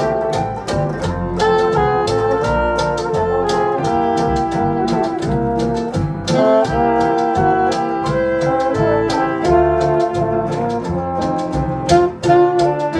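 A small jazz band playing an instrumental passage, with brass instruments carrying the tune over a steady beat.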